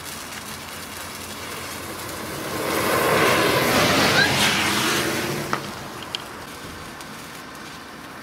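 A bundle of sparklers burning with a steady hiss that swells into a loud rush as the bundle flares up about three seconds in, then dies back. A couple of sharp pops come a little after the peak.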